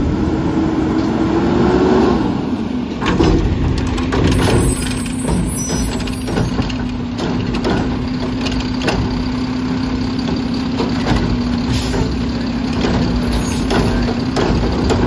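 Heil front-loader garbage truck with a Curotto Can arm pulling up and stopping, its air brakes hissing about four seconds in. Its engine then idles with a steady whine over it, the truck stopped at the carts before a pickup.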